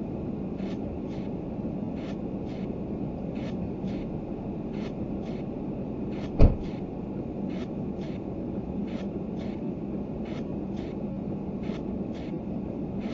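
Car driving in snow, heard from inside: a steady engine and road rumble with a hum, a faint regular ticking about twice a second, and one sharp thump about six and a half seconds in.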